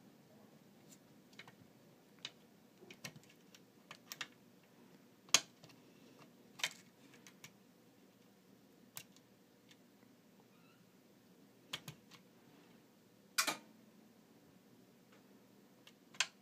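Lock pick and tension wrench working in the keyway of a Prévost pin-tumbler lock with spool pins: scattered, irregular sharp metal clicks and taps, the loudest about five seconds in and about thirteen seconds in.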